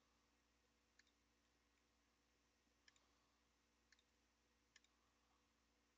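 Faint computer mouse clicks, four of them, some as quick press-and-release pairs, over a low steady hum.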